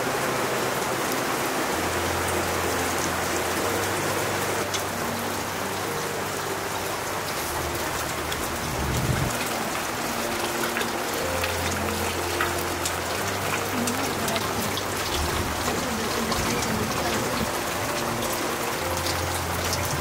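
A steady rain-like hiss with scattered fine ticks, over soft background music that plays held low notes changing every second or two.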